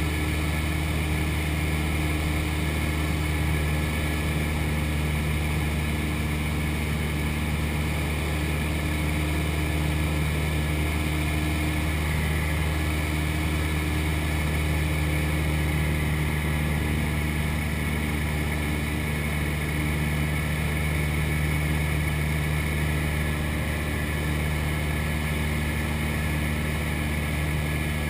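Cessna 172's piston engine and propeller running steadily at a constant pitch, heard from inside the cockpit.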